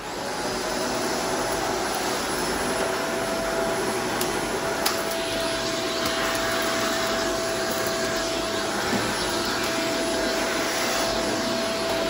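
Shark Apex upright vacuum cleaner running over bare concrete, its motor holding a steady whine, with a sharp tick of grit going up the nozzle about five seconds in.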